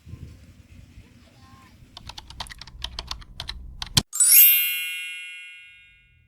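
A quick run of sharp typing-like clicks, then a single struck bell-like ding about four seconds in that rings out and fades over about two seconds, like a typewriter's keys and bell.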